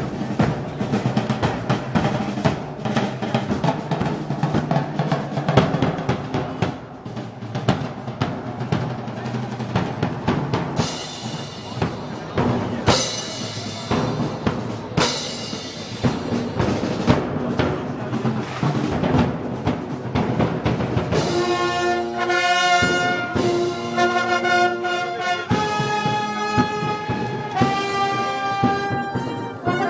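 Brass band with snare drums playing festival march music. For about the first two-thirds the drums beat and roll densely under the band; after that the brass holds long chords.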